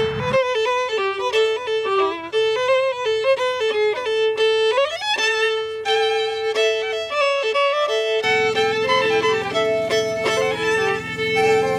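Solo violin playing a melody, with a quick upward slide about five seconds in. A low steady hum comes in under it about eight seconds in.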